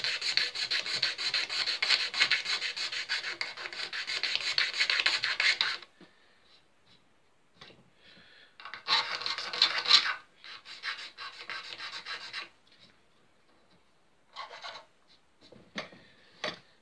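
Hand sanding on the guitar's repaired finish: rapid back-and-forth rubbing strokes that stop about six seconds in, then resume in a few shorter spells.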